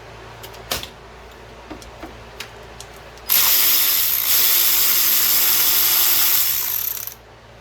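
A few light clicks, then a power tool runs for about four seconds, starting about three seconds in and stopping fairly suddenly, as it drives a bolt down on the quad.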